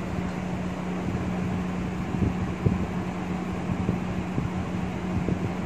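Steady machine hum, like a fan, with one low steady tone, and a few light knocks as a steel bowl scoops whey out of a muslin-lined basin of freshly curdled chhena.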